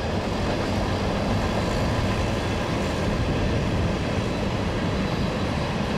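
Freight train of hopper cars rolling past: a steady rumble of steel wheels on the rails.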